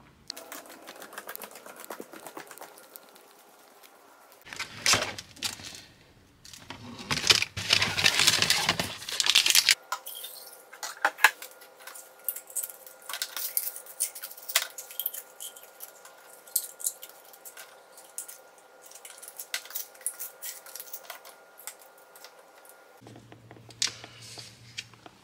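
Plastic supplement bottles being handled on a kitchen counter: caps clicking, contents rattling and bottles clattering down, many small sharp knocks in quick succession. A louder rushing noise runs for a few seconds about five to ten seconds in, and a steady faint hum sits underneath from about ten seconds in until shortly before the end.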